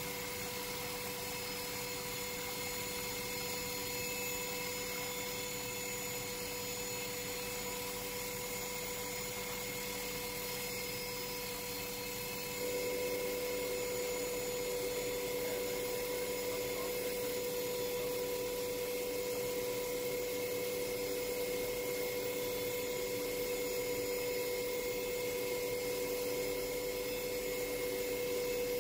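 Steady helicopter cabin drone, a constant hum of engine and rotor noise, which gets a little louder about 13 seconds in.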